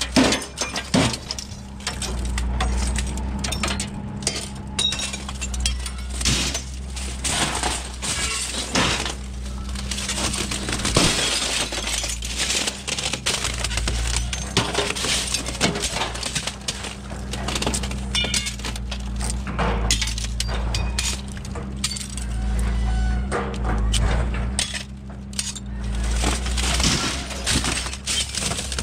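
Aluminum window frames with glass panes being handled and tossed, with repeated glass clinking and breaking and the frames rattling. A steady low hum runs underneath.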